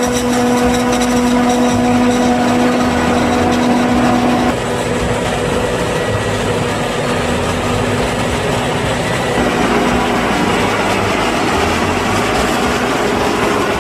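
New Holland FX60 self-propelled forage harvester working in standing maize: its engine and chopping gear run under load as a loud, steady mechanical drone with a hum. The strongest hum drops away about four and a half seconds in.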